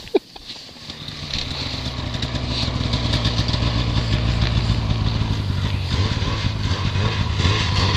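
A motor vehicle engine running, growing louder over the first couple of seconds and then holding steady, after a sharp click at the very start.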